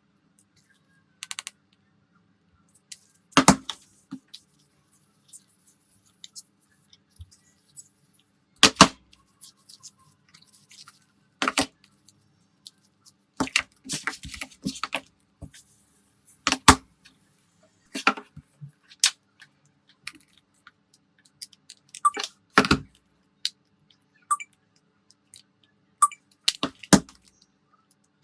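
Irregular sharp clicks and taps of small hand tools against phone parts as a phone is worked on, about a dozen strong ones spaced a second or more apart, over a faint steady hum.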